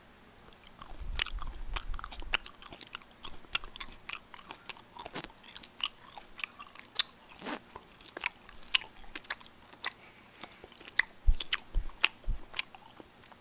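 A person chewing a mouthful of hongeo muchim, chewy unfermented raw skate in spicy seasoning: quiet, irregular chewing with many small wet clicks.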